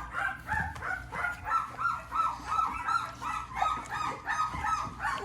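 Two-week-old American Bully puppies crying: a run of short, high, squeaky whines, about three or four a second.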